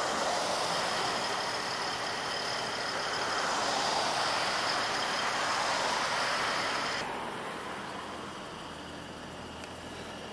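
Semi truck running close by: a steady, hissing engine noise that swells slightly, then its upper hiss cuts off sharply about seven seconds in, leaving a quieter steady noise.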